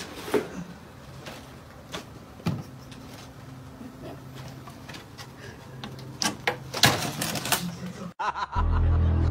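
A cat's paw tapping and scratching at the glass and wooden frame of a reptile terrarium: scattered knocks and clicks over a faint steady hum. Loud music starts near the end.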